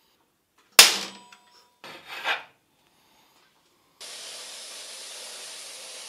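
Metal workshop sounds: a sharp clank that rings briefly, a short scrape, then a steady hiss starting about four seconds in.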